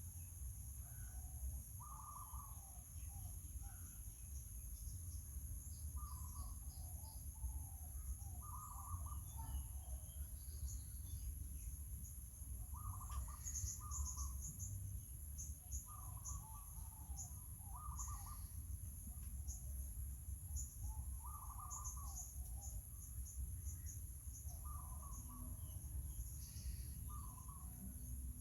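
Short animal calls repeating every second or two over a steady high-pitched drone and a low background rumble.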